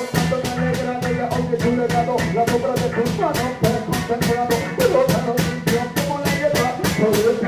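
Reggae band playing: a man sings into a microphone over a drum kit keeping a steady beat.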